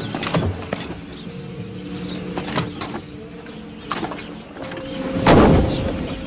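Knocks and clatters of things being moved, then a loud scraping rush about five seconds in, over sustained low music notes.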